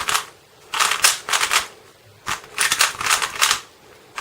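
MoYu TangLong 3x3 speed cube being turned fast during a solve: two bursts of rapid plastic clicking and clacking, with short pauses before, between and after them.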